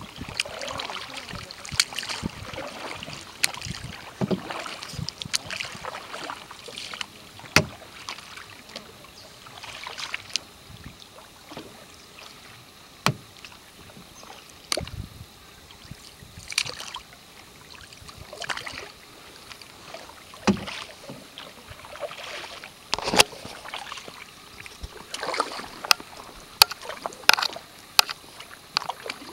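Canoe paddling: paddle blades dipping and pulling through the river water, a splash and swirl with each stroke every second or two. Sharp knocks here and there, the loudest sounds, from the paddle striking the canoe's side.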